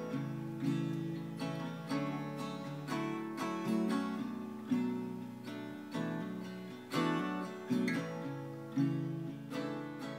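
Background music on acoustic guitar: chords struck about once a second and left to ring out and fade.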